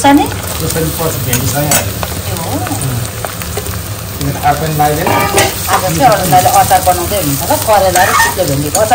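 Sliced bitter gourd tipped into onions frying in hot oil in a metal kadai, sizzling as a ladle stirs it and scrapes against the pan. The stirring and scraping grow busier about halfway through.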